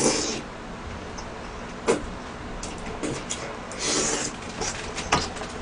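Close-miked eating sounds: a spoonful taken into the mouth with a short airy slurp at the start, then chewing, with sharp clicks of a metal spoon against a plastic bowl, the loudest about two seconds in, and another airy slurp about four seconds in.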